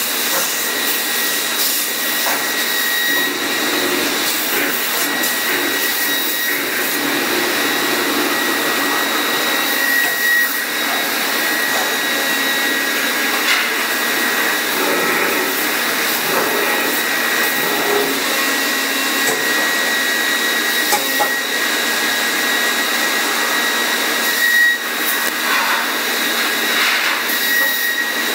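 Leifeld PNC 106 CNC metal-spinning lathe running: a loud, steady whir with a high steady whine over it, and a few brief knocks.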